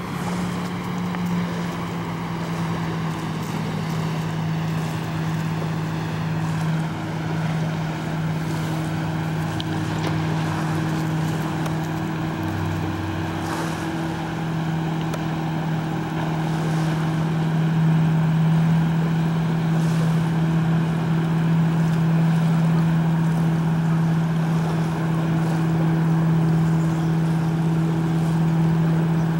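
Speedboat engine running steadily at speed out on the lake, a constant drone that grows a little louder about two-thirds of the way through, over the hiss of water.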